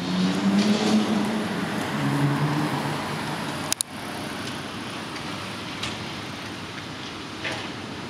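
A motor vehicle engine running, its pitch rising and falling for the first few seconds, over steady traffic noise. A sharp click comes a little under four seconds in, and after it only the steady background noise is left.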